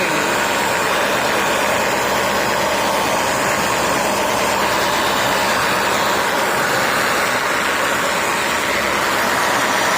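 Dyson Ball Multi Floor 2 upright vacuum cleaner running steadily, with its suction routed to the cleaner head and the motorized brush bar spinning.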